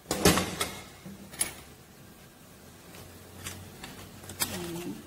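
Kitchenware being handled: a quick clatter of sharp knocks right at the start, then a few single light clicks.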